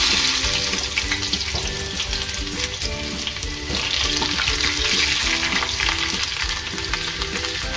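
Chopped onion hitting hot oil in a nonstick frying pan: a sizzle that starts suddenly and goes on strongly as it is stirred with a silicone spatula.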